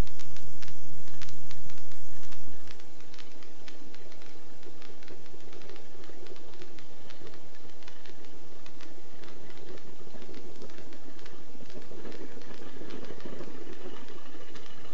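Helicopter engine and rotor running steadily, heard from inside the cockpit while the helicopter taxis to park, with a stream of small ticks over it. The sound drops a little in level about two and a half seconds in, then holds steady.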